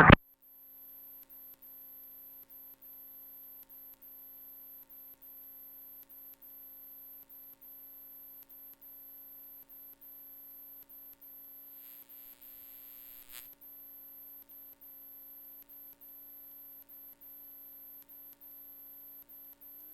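Faint steady electrical hum made of a few pitched tones, with a faint high whine. A brief hiss comes in about twelve seconds in and cuts off suddenly about a second and a half later.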